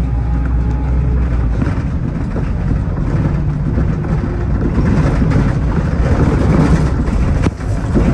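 Bus engine and road noise heard from inside the cabin of a moving bus, a steady low hum under a rushing haze that swells a little past the middle. A single sharp knock comes near the end.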